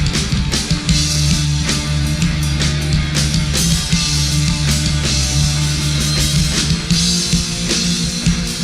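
Rock band playing an instrumental passage with no vocals: a drum kit hitting fast and steadily with bright cymbals, over guitar and a held bass line.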